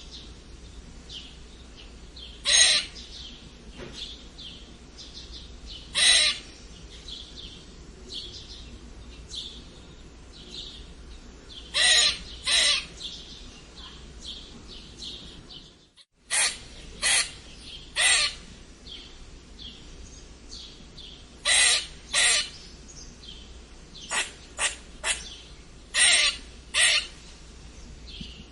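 Squirrel squeaking: short, sharp, loud calls every few seconds, sometimes in pairs or a quick run of three, with fainter chirps in between.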